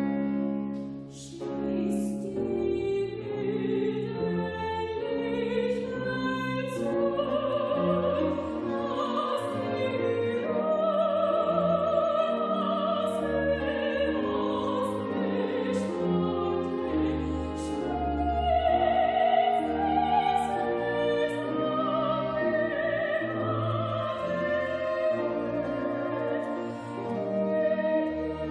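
Classical chamber music: a small ensemble of violins, cello and lute playing, with a solo voice singing in operatic style and wide vibrato over them.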